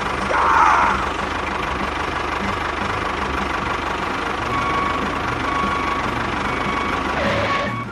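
A small engine running steadily, with a brief louder noise about half a second in.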